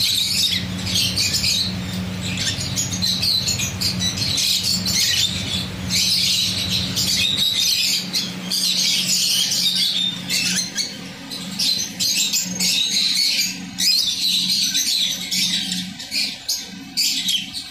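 Budgerigars chattering, a dense, continuous mix of high-pitched chirps and squawks.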